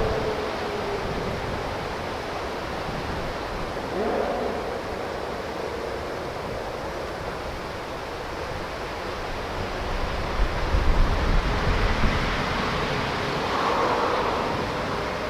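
The supercharged V6 of a Lotus Evora 400 fading into the distance, only faintly heard under steady wind noise on the microphone, with a brief rise in engine pitch about four seconds in. Low wind gusts buffet the microphone about ten to twelve seconds in.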